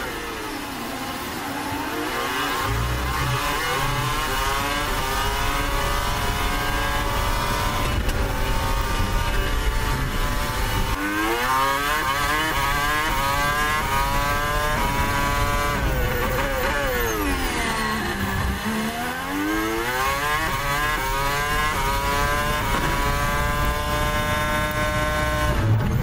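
Onboard sound of a Ferrari Formula 1 car's turbocharged V6 hybrid engine under hard acceleration, its pitch climbing again and again through quick upshifts. About two-thirds of the way through the pitch drops steeply as the car brakes and downshifts, then it climbs again.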